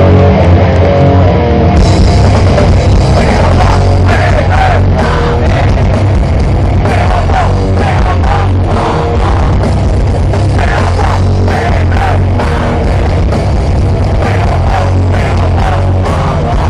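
Grindcore band playing live at full volume: heavily distorted guitars and bass under fast, pounding drums.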